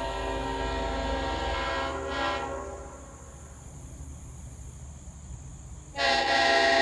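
A restored 1970 Leslie S5T five-chime locomotive horn with dome-back power chambers sounds a steady chord that dies away about three seconds in. The same chord starts again suddenly, and louder, about six seconds in.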